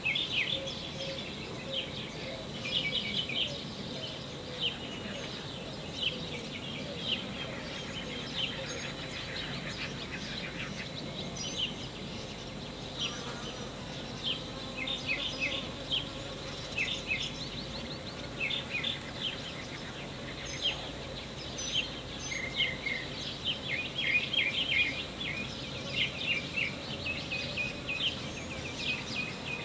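Honeybee buzzing faintly while foraging in a cactus flower, with repeated high chirps throughout that are louder than the buzz.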